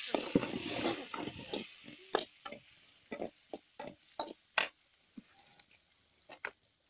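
Over the first second and a half, an animal's grunt-like calls. Then a metal ladle stirring ingredients in a wok gives a string of separate clinks and scrapes, fading toward the end.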